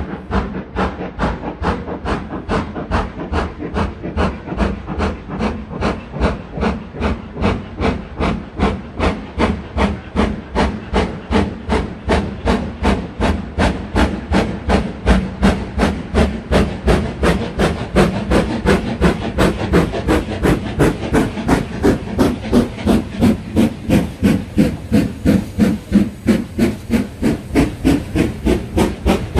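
LMS Black 5 No 45212 steam locomotive working hard as it pulls away with its train: a steady, even beat of sharp exhaust chuffs from the chimney, about three a second, with steam hissing between them. The beats grow louder about two-thirds through as the engine comes past.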